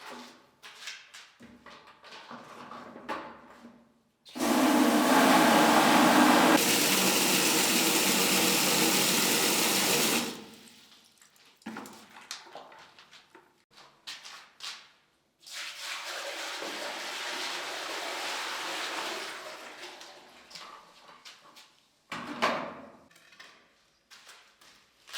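Water from newly plumbed temporary fixtures rushing loudly for about six seconds, then cutting off abruptly. A few seconds later a second, quieter spell of running water begins and then fades away. Small knocks and clicks come between the two.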